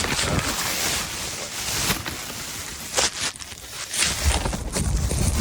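Wind buffeting the phone's microphone, rising and falling in gusts, with a few sharp clicks from about three seconds in.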